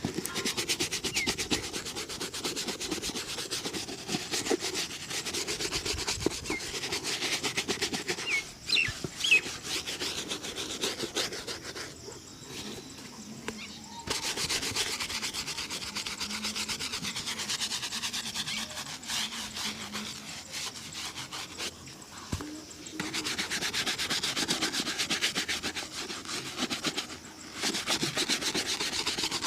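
Fast, continuous rubbing strokes of shoe polishing on a shoe's leather, with a few short lulls.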